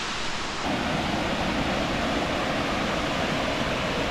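Waterfall pouring steadily, an even rush of falling water that thickens slightly in the lower range under a second in.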